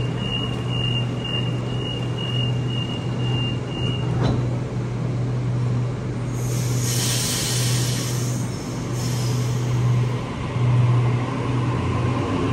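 Sydney Trains double-deck electric train departing: high door-closing warning beeps sound about twice a second for about four seconds, and the doors shut with a single knock. Then the air brakes release with hissing, and the traction motors start a rising whine as the train pulls away, over a steady low hum.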